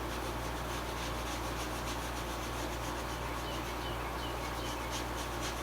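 Paintbrush scrubbing paint back and forth on canvas, a dry rubbing swish in repeated strokes that grow stronger and quicker, about three a second, near the end.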